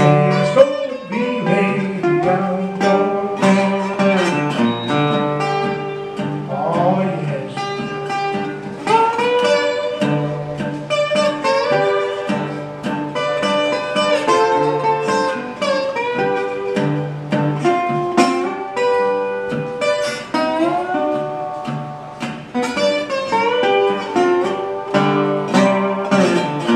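Metal-bodied resonator guitar played fingerstyle in a slow blues, with repeating bass notes under the melody and some notes gliding in pitch. A man's voice sings near the start.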